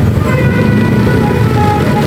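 Basuri telolet horn playing a tune of held notes that change pitch every half second or so, over a steady vehicle engine and road rumble.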